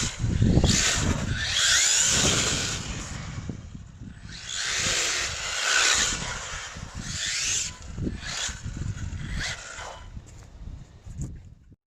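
Small brushless electric motor of an RC car whining in bursts, rising in pitch as it accelerates several times, over a low rumble. The sound cuts off suddenly near the end.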